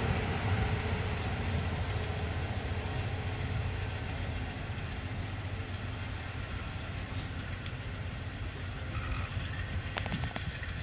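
Train rumbling past and moving away, its steady low rumble slowly dying down, with a few sharp clicks near the end.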